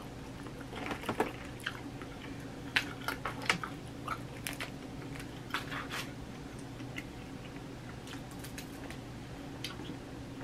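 Close-miked chewing and mouth smacks of a person eating boiled crawfish: scattered sharp clicks and crackles, clustered about a second in and again from three to six seconds, over a faint steady low hum.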